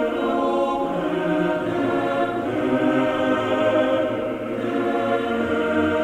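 Background music of slow, sustained chords, in a choral style.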